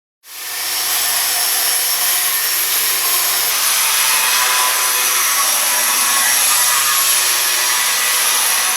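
Metabo WE 15-125 HD renovation angle grinder running steadily, with a high whine over a rough grinding noise. The sound comes in suddenly just after the start.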